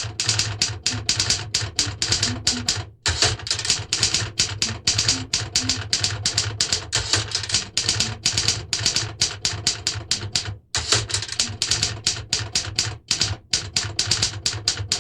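Fast typing: a dense run of sharp key clacks that starts abruptly and breaks off twice for a moment, about three seconds in and near eleven seconds.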